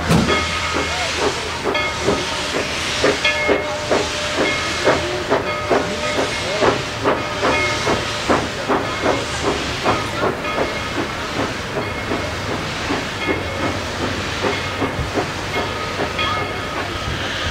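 Steam locomotive pulling away with its cylinder cocks open: a steady hiss of venting steam under rhythmic exhaust chuffs, about two to three a second, the chuffs most distinct in the first ten seconds and then blending into the hiss.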